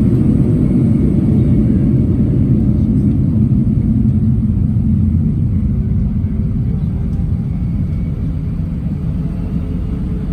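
Steady low rumble of jet engines and airflow inside the cabin of an Airbus A319, easing slightly toward the end, with a faint steady hum coming in about six seconds in.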